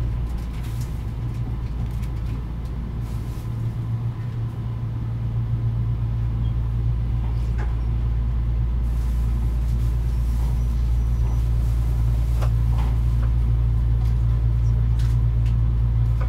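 Kintetsu 80000 series 'Hinotori' electric train running, heard from inside the passenger cabin: a steady low rumble and hum that grows gradually louder, with a few faint clicks.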